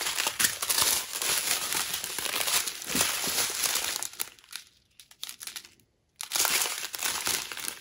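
Plastic bags of diamond painting drills crinkling as they are handled and laid down on the plastic-covered canvas. The crackling dies away a little past halfway, stops for about a second, then starts again.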